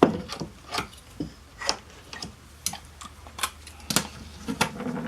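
Irregular light clicks and taps, about ten over five seconds, of hands working with a strip of Velcro and small tools while measuring and marking its length.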